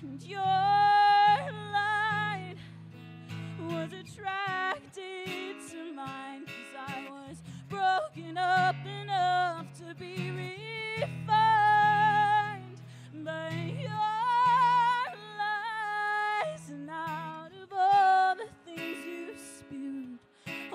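A woman singing live while strumming an acoustic guitar, her voice holding long, wavering notes over the guitar chords.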